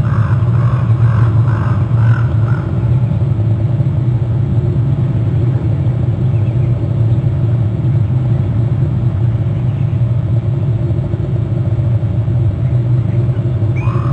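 Steady low rumble and hum throughout. Over it, in the first couple of seconds, a bird calls in a quick fading series of about four calls a second, and a single short rising call comes near the end.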